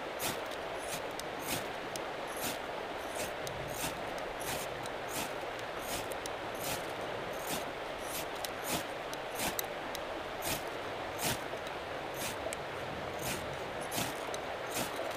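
Repeated quick scrapes of a ferro rod striker, roughly two a second, as he tries to throw sparks onto birch bark tinder to light a fire. Under it, the steady rush of a fast-flowing creek.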